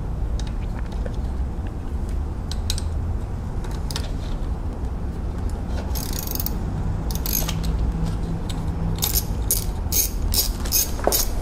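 Socket ratchet with an 8 mm socket clicking as it works bracket bolts loose: a few scattered clicks at first, a short run of clicking about halfway through, then quicker clicking, about three a second, over the last two seconds.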